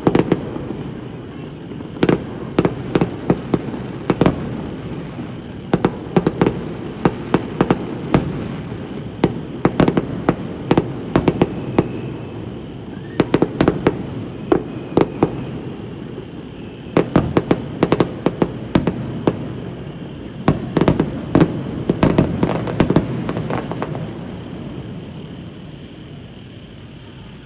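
Aerial fireworks going off: volleys of sharp bangs and crackles in clusters every few seconds over a continuous rumble of echoing explosions, the bangs thinning out and the rumble fading near the end.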